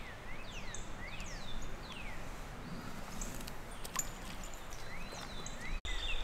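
Birds singing, many quick sliding whistled notes, over the steady rush of creek water, with a few light clicks.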